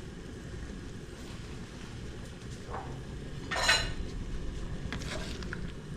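Kitchen pot and utensils clinking and clattering a few times, with one louder clatter about three and a half seconds in, over a low steady background noise.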